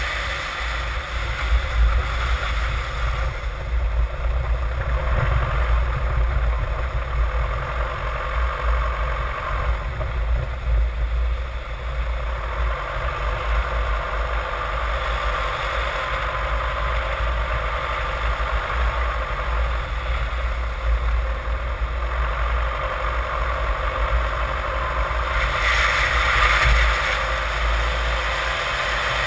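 Road noise from under a moving Jeep Liberty (KJ) CRD: a steady low rumble of tyres and driveline with a hiss of air and road over it.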